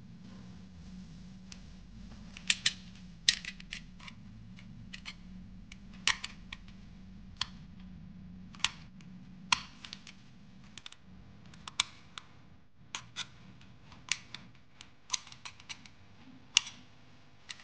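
Snap-off utility knife blade scraping and picking at the circuit board of an LED bulb around a burnt-out LED: a string of sharp, irregular clicks and scratches.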